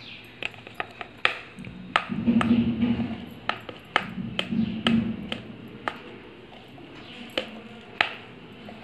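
A stainless steel tumbler being tapped and knocked to shake spice powder out into a plastic bowl, giving a series of sharp metallic clinks and taps at an uneven pace that thin out after about six seconds.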